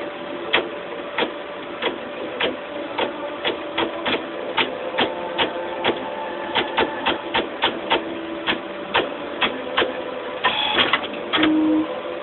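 Automated disc duplicator running: a steady motor hum under a regular run of sharp mechanical clicks, about two a second, coming closer together midway. Near the end comes a short, busier cluster of clicks and whirring as the machine handles a disc.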